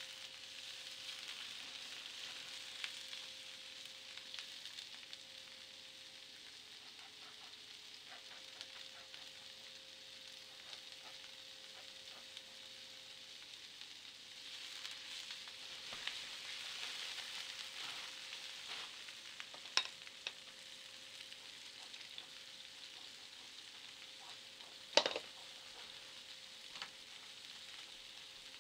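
Quiet kitchen prep sounds at a glass bowl: olive oil and white wine poured and stirred, then raw chicken wings dropped into a glass bowl, over a steady hiss and a faint hum. Small clicks come through now and then, and a sharp clink near the end is the loudest sound.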